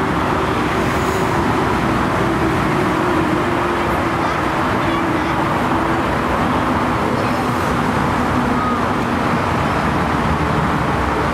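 Steady roar of a jet airliner's engines on landing rollout, with a humming tone that sinks slightly in pitch and fades about halfway through.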